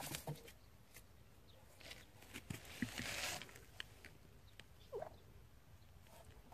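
Faint scratching and tapping of kittens' claws on concrete slabs and gravel, with a short hiss-like burst about three seconds in and a brief falling squeak near five seconds.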